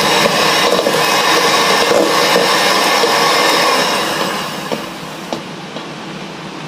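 Electric hand mixer running, its beaters creaming unsalted butter in a stainless steel bowl with a steady motor whine. About four seconds in it turns much quieter.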